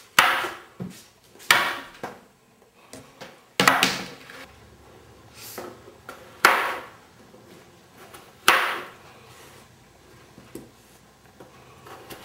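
Kitchen knife chopping ridge gourd and potatoes on cutting boards: five loud chops a second or two apart, each striking the board, with lighter cuts and clicks between.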